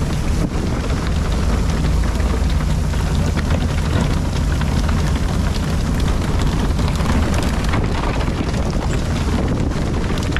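A fishing boat's engine running steadily under a loud, even rush of water spray and wind.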